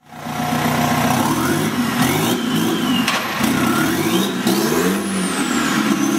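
Biodiesel-fuelled BMW two-litre car diesel engine in a custom motorcycle, running and being revved up and down several times. A thin high whistle rises and falls above the engine note.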